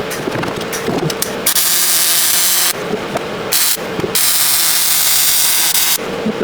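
Welding arc hissing and crackling in three bursts: from about a second and a half in, briefly near the middle, and again from about four seconds to near the end. A steady hum with light clicking runs between the bursts.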